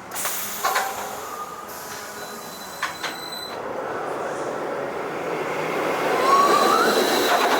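Ice Breaker roller coaster train running on its steel track: a few clanks in the first three seconds, then a rumble that builds to its loudest in the second half, with a short rising whine near the end.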